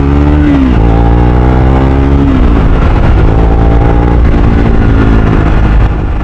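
Triumph Speed 400's single-cylinder engine through a slip-on aftermarket exhaust, accelerating hard: the pitch climbs, drops at two gear changes about half a second and about two and a half seconds in, then holds steady before the throttle eases off near the end.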